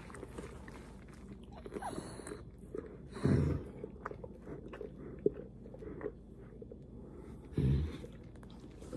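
Great Dane in labor licking herself: wet licking and mouth smacking, with two short louder bursts a little over three seconds in and near the end.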